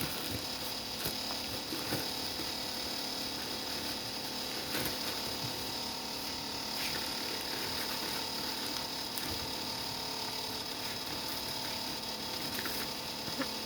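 Small geared electric motor running steadily, with a few faint clicks.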